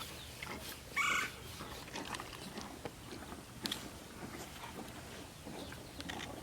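Faint scattered ticks and rustles, with one short animal call about a second in.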